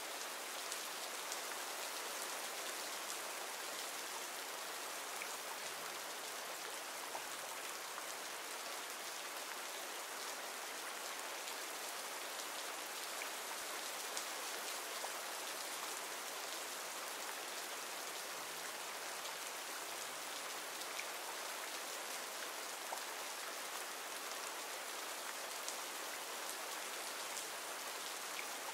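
Steady rain falling, a recorded rain ambience track, with faint scattered drop ticks.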